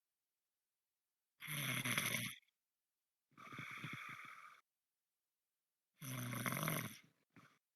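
A person snoring: two loud snores about four and a half seconds apart, with a quieter, breathier breath between them.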